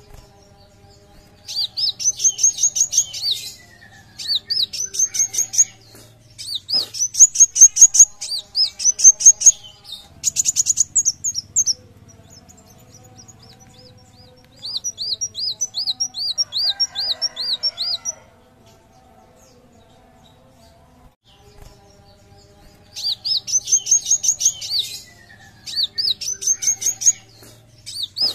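Van Hasselt's sunbird (kolibri wulung) singing: rapid strings of high, thin upslurred notes in bursts of one to two seconds with short pauses, and a slower run of evenly spaced arched notes around the middle. A pause of about four seconds comes after that, before the fast bursts start again.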